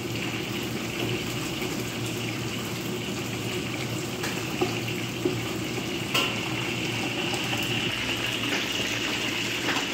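Flour-coated chicken pieces deep-frying in hot oil in a steel wok: a steady sizzle with a few sharp clicks around the middle, the sizzle getting a little brighter after about six seconds.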